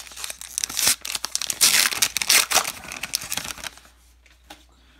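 A Topps baseball card pack's wrapper being torn open by hand and crinkled, a run of ripping and crinkling noises that dies down after about three and a half seconds, leaving only faint ticks.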